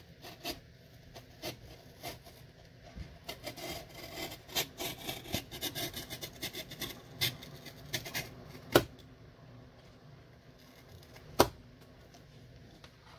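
Craft-knife blade scraping and cutting through a waxed cardboard drink carton that serves as a candle mold, in a run of quick scratching strokes. Two sharp clicks follow a couple of seconds apart, the second the loudest.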